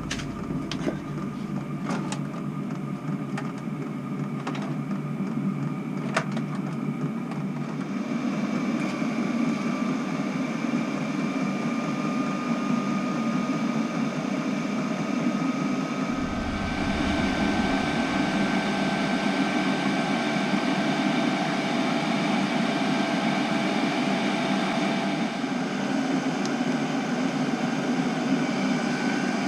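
Chinese diesel air heater running through its startup, its fan blowing steadily with a whine, with a few sharp ticks in the first several seconds. About 16 seconds in the sound becomes fuller and lower.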